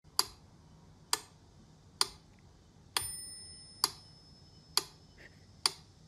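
Steady clock-like ticking, a sharp tick a little under once a second, with a short bell-like ding ringing out on the fourth tick.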